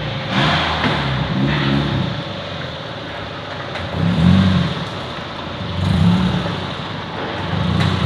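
Car engine running, with its revs rising and falling in repeated swells about every two seconds.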